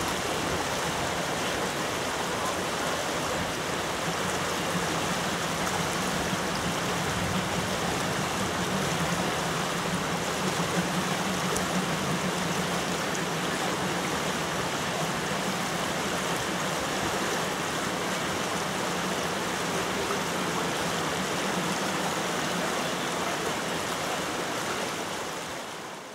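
Shallow mountain river rushing over boulders, a steady noise of fast water, with a low hum under it through the middle. It all fades away at the very end.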